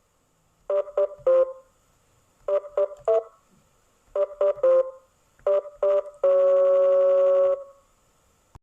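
Short electronic beeps in quick groups of three at slightly varying pitches, repeated three times. Then two more beeps and a steady tone held for just over a second, about six seconds in.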